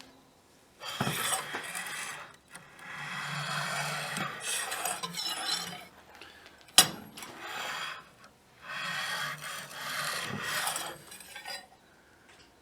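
A metal scribe scraping along the edge of a Damascus steel knife blank in repeated strokes of a second or two each, marking a centre line for the bevels. A sharp click comes about seven seconds in.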